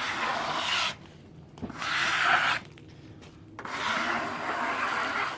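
Three rough rubbing, rasping strokes, each about a second long with short pauses between; the last is the longest.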